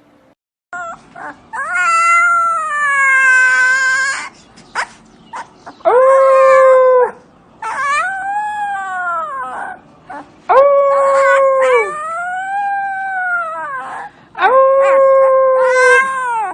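A dog howling: a series of about six long howls, each one to two seconds or more, some held level and some rising then falling in pitch.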